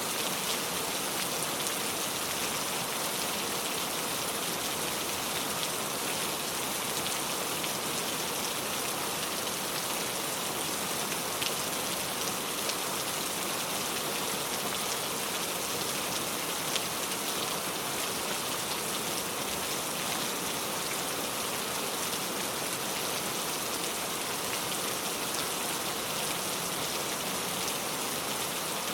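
Steady heavy rain falling on a surface, an even hiss with a few separate drop ticks here and there.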